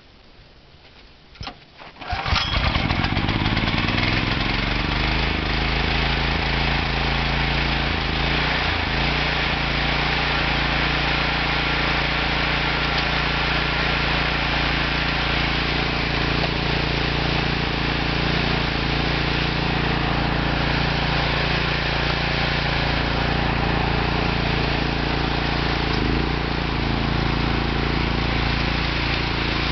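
The petrol engine of a tracked ZLST 1101 Q snow thrower being started. It catches about two seconds in, picks up speed, and settles into steady running. Near the end the machine is throwing snow.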